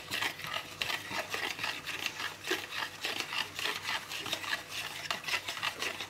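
Small wire whisk beating egg yolks in a plastic measuring jug: a quick, uneven run of light clicks and scrapes, several strokes a second, as the wires hit the jug's sides.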